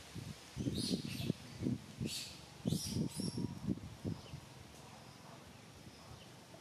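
Short high chirps, with a run of irregular low, dull thumps beneath them for about the first four seconds, which are the loudest part; after that only a quiet outdoor background.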